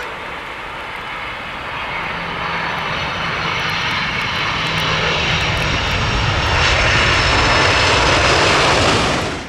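Boeing 767's twin turbofan engines roaring as the jet passes low along the runway, growing steadily louder and peaking near the end before cutting off abruptly.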